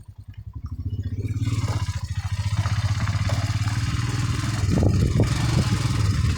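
A vehicle engine pulls away and builds under load on a rough track, with rattling knocks about five seconds in.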